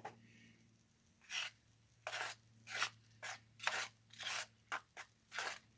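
A spoon stirring and scraping through a thick, wet mix of white Portland cement and water, in short strokes about two a second, with a faint steady low hum underneath.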